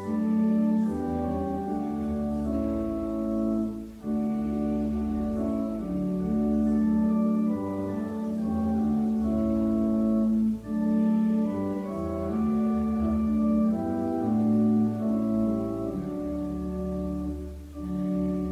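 Church organ playing a slow piece in held chords over a low bass line, breaking off briefly twice between phrases.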